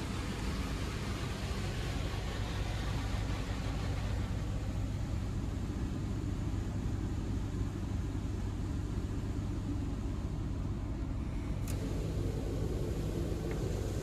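Touchless automatic car wash heard from inside the car's cabin: a steady low rumble with the hiss of spray and foam hitting the glass, the hiss easing off after the first few seconds. A single short click near the end.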